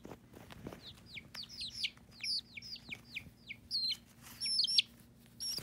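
Baby chicks peeping: a steady run of short, high calls, each falling in pitch, several a second, with a sharp knock near the end.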